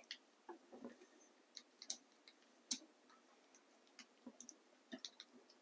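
Faint, irregular light clicks and taps of a hex key working the small controller-housing bolts on an M600 mid-drive motor, the bolts turned a little at a time as they come to a stop.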